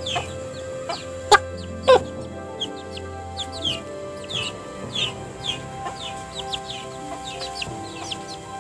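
A chick peeping repeatedly in short falling chirps, with a hen clucking, as they peck at a papaya. Two sharp taps come about a second and a half and two seconds in.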